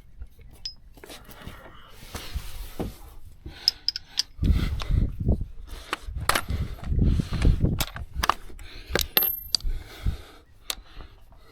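Metal hand tools and parts clinking and knocking in a string of sharp irregular clicks, with dull low thuds and rumbling handling noise in the middle stretch.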